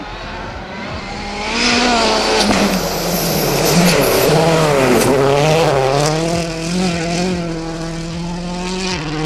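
Citroën C4 WRC rally car's turbocharged four-cylinder engine revving hard at speed on a gravel stage. The note climbs, dips about five seconds in, then climbs again in steps through gear changes and holds steadier near the end.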